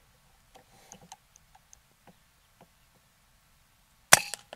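A single shot from a Brocock Ranger XR .22 PCP air rifle fitted with a 0DB moderator, one sharp crack about four seconds in, after a few faint ticks.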